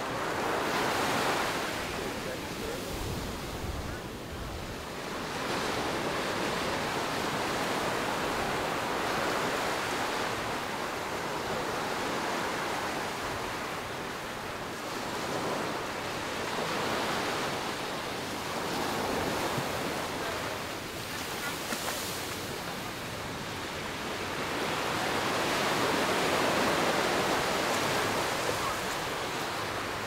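Ocean surf breaking and washing up the beach, the rush of water swelling and easing every several seconds.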